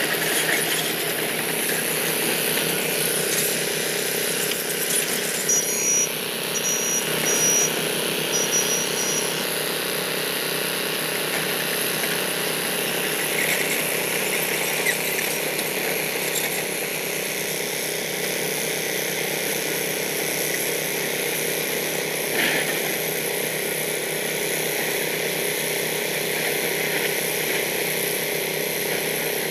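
Hyundai Robex 215L crawler excavator's diesel engine running steadily under work, with metallic rattling and clanking from the machine as it travels and digs.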